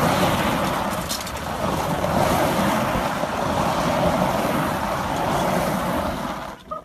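Golf carts driving fast over loose gravel, their tyres churning it up, heard as a steady rushing noise mixed with wind on the microphone. The noise cuts off just before the end.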